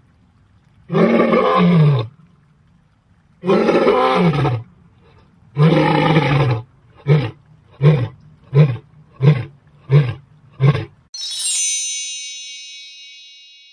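Lion roaring: three long, deep roars, then a run of about seven short grunting roars that get closer together. About eleven seconds in, a bright chime rings and slowly fades.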